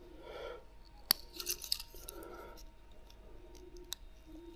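Faint handling noises of a soft plastic lure and its wire stinger rig being handled: soft rubbing and scraping, with two sharp small clicks, about a second in and near the end.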